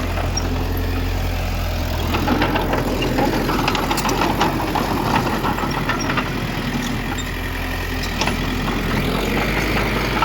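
Heavy diesel earthmoving machinery running steadily, with scattered clanks and rattles from about two seconds in until about eight seconds.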